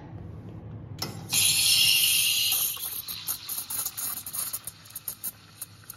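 Steam wand of a Ferratti Ferro FCM 3243 Le Gazzio Doppio espresso machine steaming milk in a stainless steel pitcher. A loud high hiss starts about a second in as the steam opens into the milk, then eases after a couple of seconds into a quieter hiss with a fine crackle as the milk is swirled and textured.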